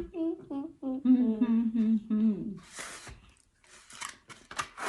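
A person humming a short tune in steady held notes for about two and a half seconds. Then a brief breathy hiss and a few small clicks and crackles.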